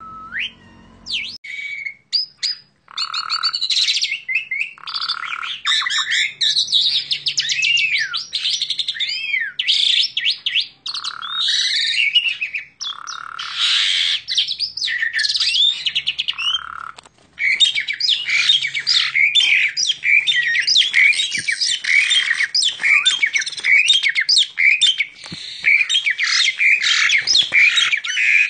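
Male Asian pied starling (jalak suren) singing a long, varied song of whistles, harsh squawks and chatter packed with imitated phrases of other birds. The phrases come in separate bursts at first, then run together into rapid, unbroken chatter from about halfway.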